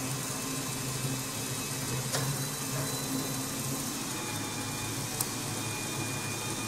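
Electric motor and gear train of a Meccano model crawler tractor running steadily in third gear, a low even hum. Two light clicks about two and five seconds in.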